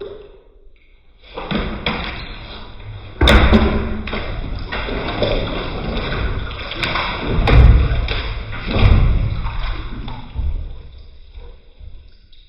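A cat scrambling in a bathtub: a noisy commotion with several heavy thumps and knocks, loudest in the middle, then dying away.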